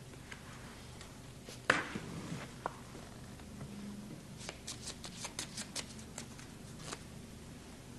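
Playing cards being handled and shuffled: one sharp snap about two seconds in, then a run of quick crisp card clicks in the second half.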